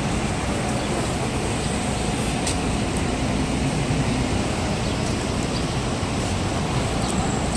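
Steady low rumble of street traffic and idling vehicle engines, with no distinct events.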